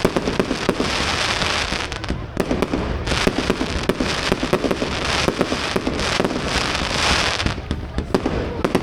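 Fireworks going off: a rapid run of bangs and pops with dense stretches of crackling from crackle shells, easing off briefly about two seconds in and again near the end.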